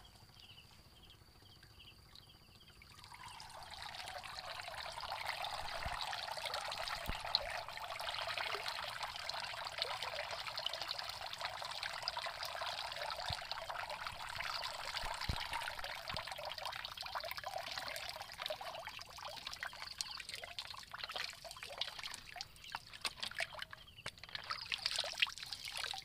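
Water pouring and trickling out of the slits of a plastic-bottle shrimp trap lifted from a river. It starts about three seconds in, runs steadily, then thins to a dribble with a few handling clicks near the end.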